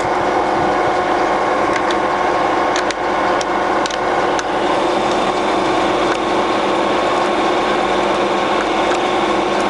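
Colchester Triumph 2000 centre lathe running with its spindle at 80 RPM and the power feed engaged, a steady hum of gears with several pitched tones. A few light clicks come between about three and four and a half seconds in as the feed gearbox is shifted through its speeds.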